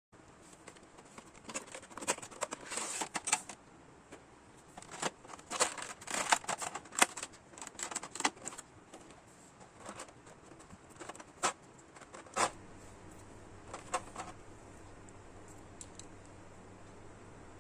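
Small plastic figure parts and tools being handled on a work surface: irregular sharp clicks, taps and light rattles, thickest in the first half and thinning out after about fourteen seconds. A steady low hum comes in about twelve seconds in.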